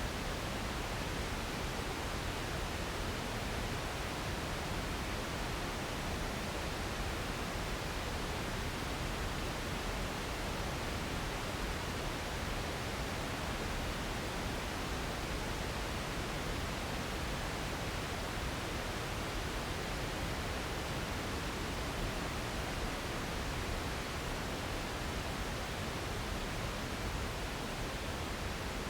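Steady filtered pink noise, an even wide-band hiss and rush without tones or changes, used as an ambient drone.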